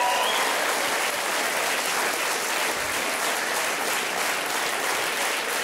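Studio audience applauding, a dense steady clatter of many hands clapping, with a cheer fading out in the first moment.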